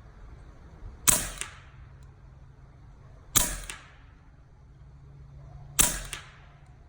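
Three shots from an AEA Terminator .357-calibre PCP air rifle, a little over two seconds apart, each a sharp crack followed about a third of a second later by a fainter second click.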